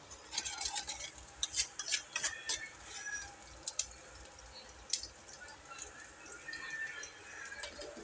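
A utensil stirring and scraping against a stainless steel pot, with a run of clicks and scrapes over the first three seconds and one more about five seconds in. Underneath, diced ingredients sauté in oil with a faint sizzle.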